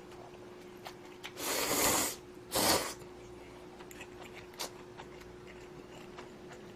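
Noodles slurped from a spicy budae-jjigae ramyeon, twice: a longer slurp about a second in and a short one near three seconds.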